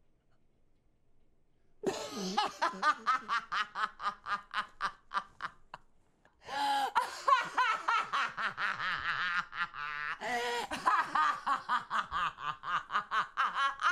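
A man laughing hard in long runs of quick, rhythmic ha-ha bursts, starting about two seconds in, with a short break near the middle.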